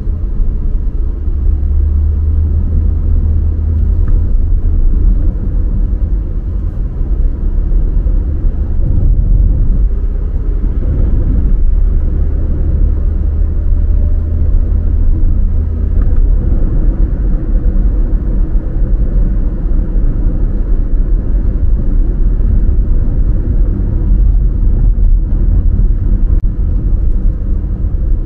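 A car being driven, heard from inside the cabin: a steady low rumble of tyre and engine noise that rises and falls slightly with the road.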